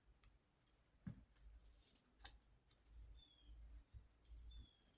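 Soft rustling and light taps of paper cut-outs being handled and set down. A few faint, short, high chirps come in the second half.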